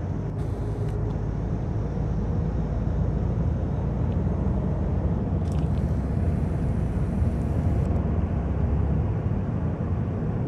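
Steady low rumble of a car's engine and road noise heard from inside the cabin as it drives.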